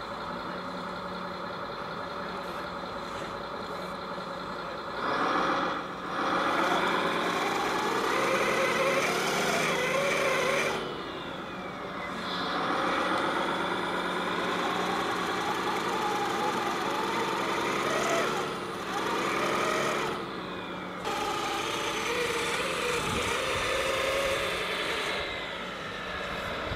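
Engine sound of a radio-controlled scale tipper truck, a recorded diesel played through its sound module. It idles steadily for about five seconds, then revs up and down in four louder spells as the truck works through loose gravel, settling back to idle between them.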